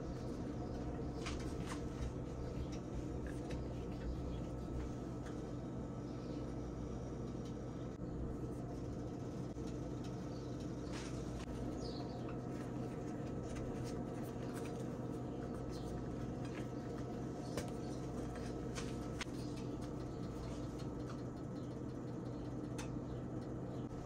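Soft rustling and scattered light taps of a flour tortilla being folded and rolled by hand on a wooden board, over a steady low hum.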